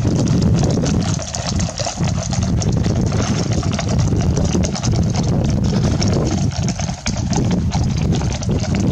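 Wind buffeting the microphone in a steady low rumble, over the irregular clatter of hooves from a group of horses moving off.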